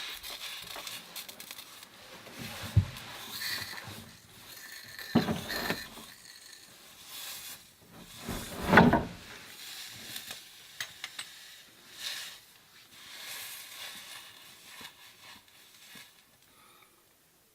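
MAPP gas torch hissing as it heats a copper pipe fitting for soldering, with scattered knocks and clunks of handling; the hiss drops away near the end.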